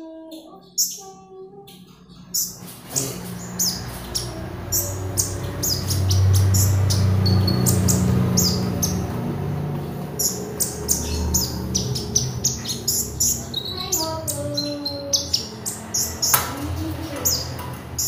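Caged kolibri ninja sunbird singing busily: a rapid stream of short, sharp, high chirps from about two seconds in. Under it a low hum swells to its loudest around the middle and then fades.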